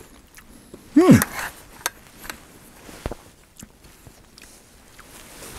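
A man tasting food: about a second in, a short appreciative 'mm' that rises then falls in pitch. After it come faint scattered clicks of a metal spoon against a stainless steel bowl.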